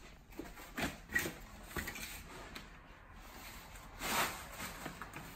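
Rustling and a few light knocks of someone rummaging through a bag, with a louder rustle about four seconds in.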